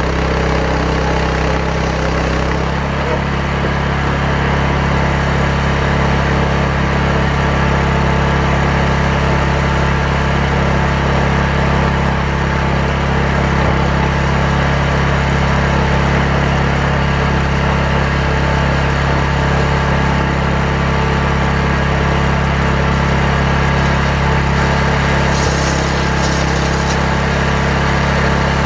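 A chainsaw engine running steadily under load, ripping a hardwood log lengthwise into timber. The tone shifts slightly about two and a half seconds in.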